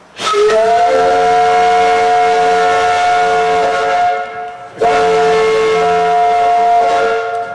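Steam whistle on a sawmill boiler blown in two long blasts, the first about four seconds and the second about two and a half, several notes sounding together. Each blast rises briefly in pitch as the steam comes on.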